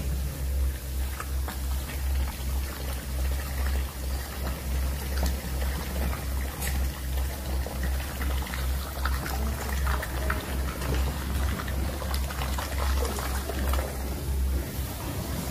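Wet floor-screed mortar pouring from a pump hose and spreading over the floor, a steady sloshing pour with small splashes, over a low pulsing rumble.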